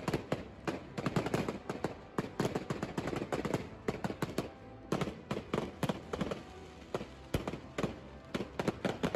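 Fireworks going off: many sharp, irregular bangs and crackles following one another in quick succession.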